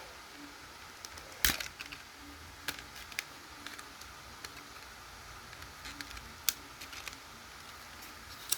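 Scattered sharp clicks and light scrapes of hard plastic being handled, as a battery stuck inside a smoke alarm is worked at; the loudest click comes about a second and a half in.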